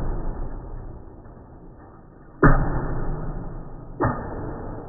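Small plastic toy car clattering and rolling across a laminate floor: a sharp knock about two and a half seconds in and another about four seconds in, each trailing off into about a second of rolling rattle.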